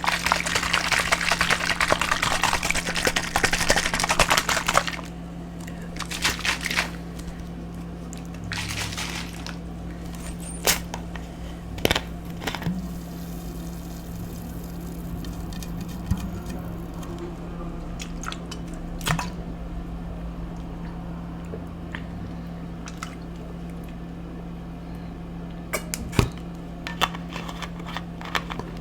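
Eating and drinking sounds. A dense crackle lasts about the first five seconds, then come scattered clicks and small knocks, over a steady low hum.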